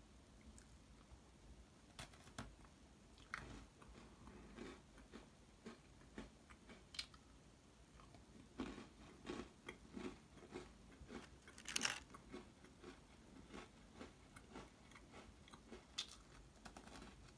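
Someone biting and chewing a crunchy red velvet Oreo sandwich cookie: faint, irregular crisp crunches, the loudest about twelve seconds in.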